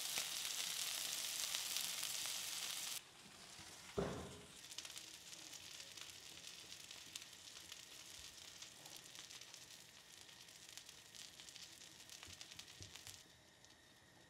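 Smash burger patties sizzling in a hot pan, loud for the first three seconds, then cutting suddenly to a quieter sizzle with small pops. A single sharp knock about four seconds in.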